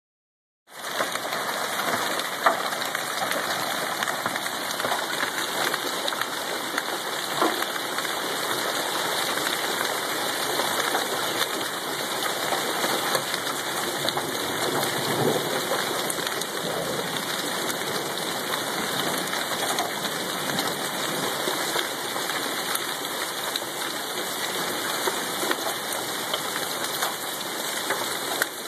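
Small hailstones mixed with rain pelting grass and a wet concrete sidewalk: a steady, dense hiss with scattered sharper ticks of individual stones.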